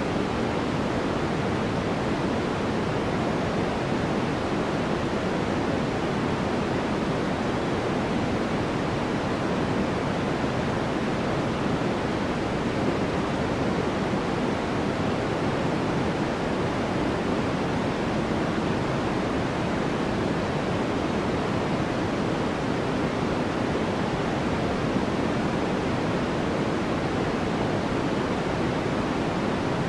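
Steady white noise for sleep: an even, unchanging hiss, fuller in the low and middle range than in the highs.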